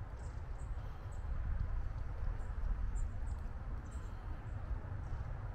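Outdoor ambience: a steady low rumble of wind on the microphone, with scattered faint high chirps from small birds.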